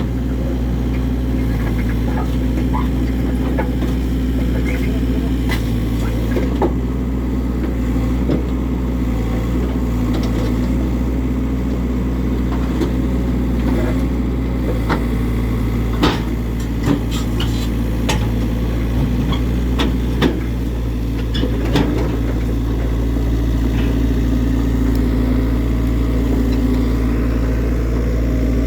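Heavy diesel engine running steadily under light load, with a few sharp metal clanks now and then as the excavator is unloaded.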